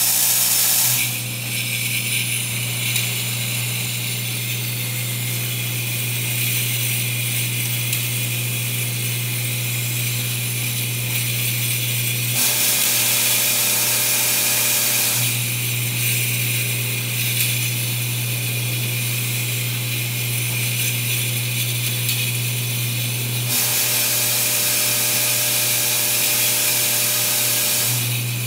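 Vibratory bowl feeder running with a steady low hum while glass micro vials rattle and clatter in the bowl and along its feed track. Twice the hum stops for a few seconds, leaving a brighter hiss.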